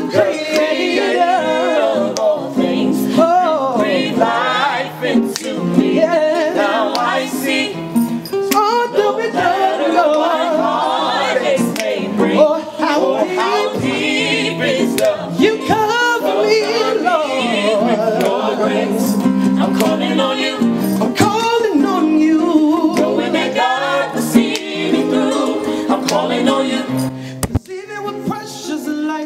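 Gospel vocal group singing in harmony, women's and men's voices together, dipping briefly near the end.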